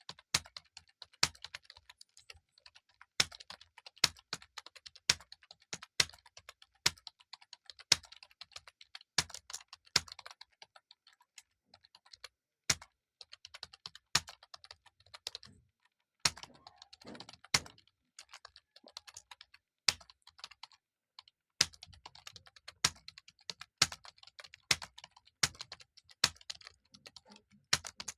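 Typing on a computer keyboard at a steady pace: a continuous patter of keystrokes, with a louder key stroke about once a second.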